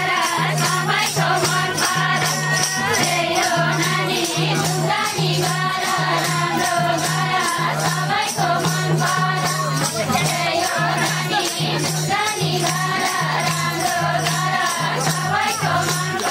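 Nepali ratauli folk song: group singing over a shaker-like rattle keeping an even beat of about four strokes a second and a repeating low note.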